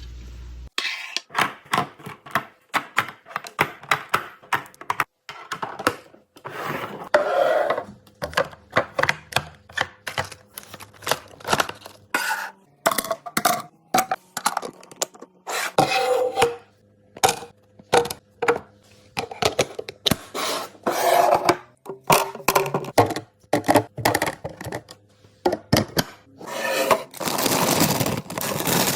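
Food containers, jars and packaging being handled and set down on fridge shelves: an irregular run of clinks, taps and clatters with rustling in between.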